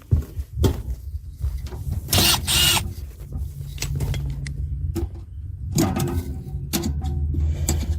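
Hands working on an air-conditioner unit during disassembly: scattered clicks and knocks of tools and parts, with a brief scraping burst about two seconds in, over a steady low hum.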